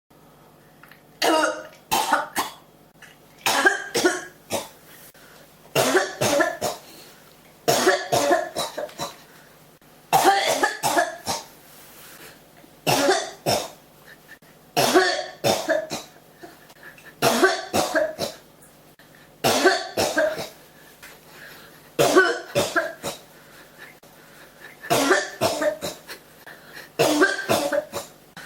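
A person coughing in a fit that keeps going: bursts of two to four harsh coughs every two to three seconds, with short pauses between them.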